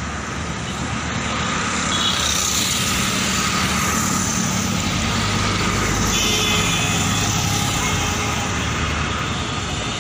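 Road traffic heard from a moving vehicle: a steady engine drone under a rush of road noise, a little louder from about two seconds in.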